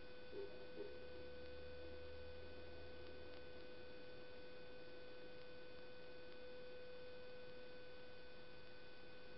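Steady electrical hum and whine of the recording, several fixed tones over a faint hiss, with two soft ticks in the first second.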